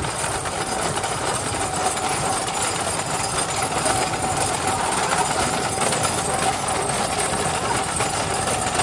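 Steady rattling travel noise on a paved road: the engine and wind of the vehicle carrying the microphone, mixed with a bullock cart's wooden wheels rolling on asphalt beside it.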